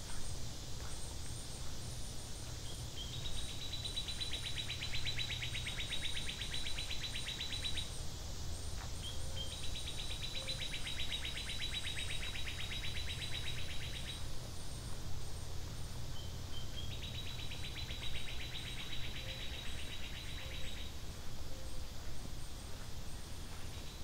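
A wild animal's buzzy, rapidly pulsed trill, given three times. Each trill lasts about four to five seconds and opens with a couple of short notes. Faint high chirping and a steady low background run throughout.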